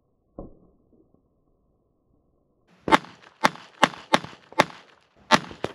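Beretta 21A pistol firing .22 LR, seven quick, sharp shots in about three seconds, starting about three seconds in. A faint knock comes just before them.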